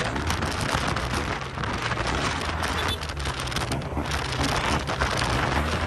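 Wind rushing over the microphone with the steady low hum of a Yamaha TMAX maxi-scooter's parallel-twin engine running at cruising speed.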